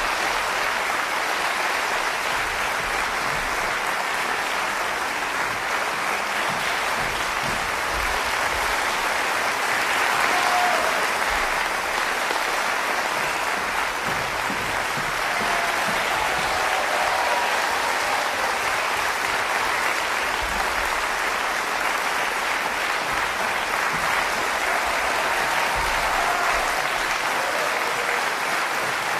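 Large theatre audience applauding, a steady, dense clapping that holds at one level throughout, with a few brief calls heard over it.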